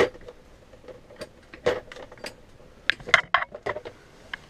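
Scattered clicks and light metal clinks of a case of extractor sockets for rounded-off bolts being handled, its latch not wanting to open, with a quicker run of clicks about three seconds in.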